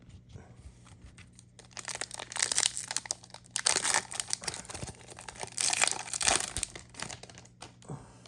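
Foil wrapper of an Upper Deck hockey card pack being torn open and crinkled. It comes in irregular bursts of crackling from about two seconds in until near the end.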